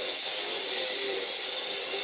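A power tool running steadily with a strong high hiss.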